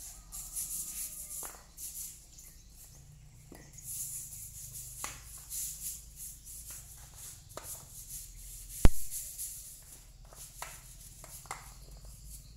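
Water splashing and trickling at an outdoor tap and basin as someone washes by hand, with scattered small knocks and clicks and one sharp, loud knock about nine seconds in.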